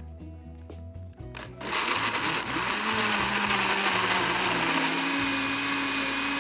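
Electric countertop blender pureeing fresh tomato chunks with a little water. It starts up about a second and a half in and then runs steadily.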